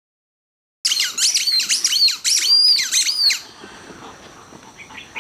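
Panda-shaped dog toy squeaking over and over as a dog bites down on it: about eight quick, high squeaks that rise and fall in pitch, starting about a second in and stopping a little past halfway.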